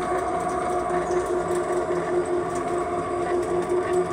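Electric drive motor of a motorized shopping cart whining steadily as the cart drives along, with a regular pulsing underneath.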